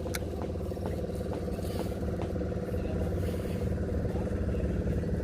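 A motor vehicle's engine running at a steady speed, with a few faint clicks early on.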